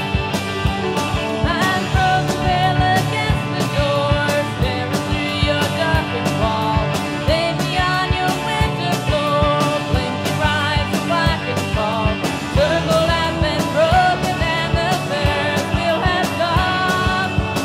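A 1980s jangly indie rock song playing: a singing voice over electric guitars, bass and a steady drum beat.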